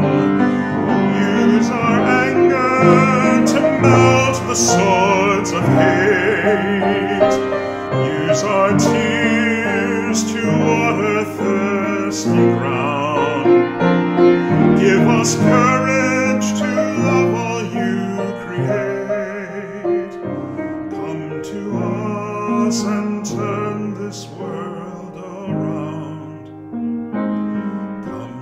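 A man singing a sacred song with piano accompaniment, his voice wavering with vibrato on held notes.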